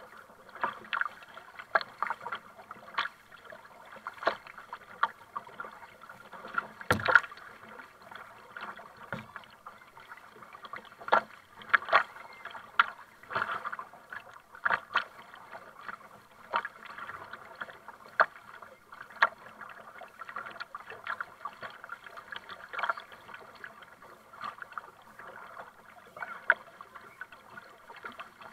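Kayak paddling: water splashing and slapping at the kayak's bow and paddle blades dipping, in irregular sharp splashes over a constant wash of water, the loudest about seven seconds in.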